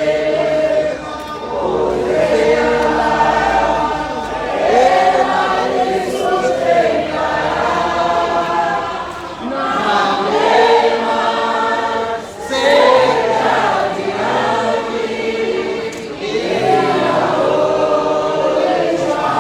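Many voices singing together in chorus, phrase after phrase, with brief breaths between phrases.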